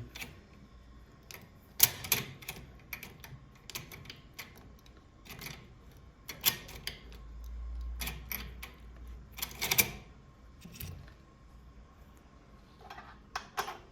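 Irregular sharp metal clicks from a Prodecoder Automatic decoder being worked in a Yale 3+3 safe lock as its turbo wheel is adjusted and turned. The loudest clicks fall about two seconds in and just before ten seconds, with a low rumble of handling a little past the middle.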